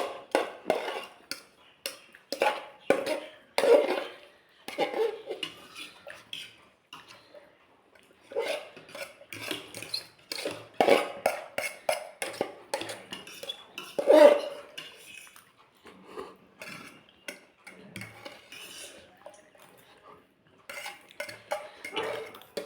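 Spoon and cutlery clinking irregularly against plates and bowls while eating, many small clicks with an occasional louder knock.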